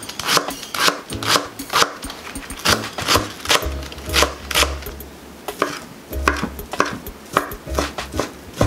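Kitchen knife chopping a Korean leek into rounds on a wooden cutting board: a steady run of sharp knocks of the blade on the board, about three a second.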